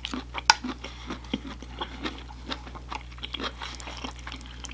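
Close-up chewing and crunching of food, irregular wet mouth clicks and crackles, with one sharper click about half a second in.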